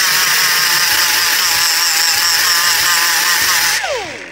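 A small grinder with an abrasive disc runs at speed, grinding metal on a hydraulic valve block, its whine wavering as the disc bites. About four seconds in it is let off and spins down, the pitch falling quickly.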